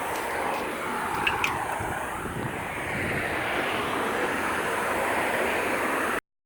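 Passing road traffic: a steady rush of vehicle noise that grows louder partway through, with two short high chirps just over a second in. The sound cuts off suddenly near the end.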